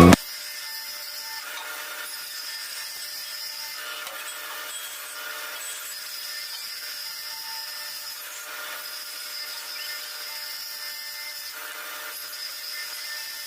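A woodworking tool rubbing or cutting into wood, a steady scraping that goes in passes of a second or two each.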